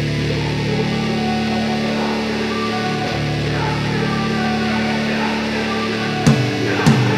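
Rock music with electric guitar: sustained guitar chords, then drum hits coming in near the end.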